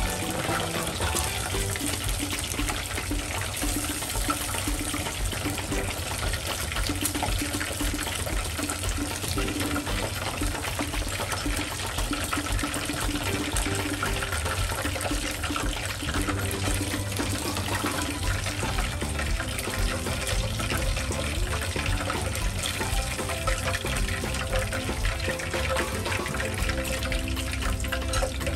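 Chicken pieces sizzling steadily as they deep-fry in hot oil, with background music underneath.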